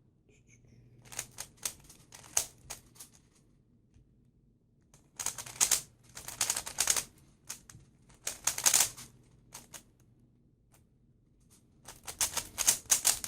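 3x3 Rubik's Cube being turned quickly by hand: rapid plastic clicking and clacking of the layers, in four flurries with short pauses between.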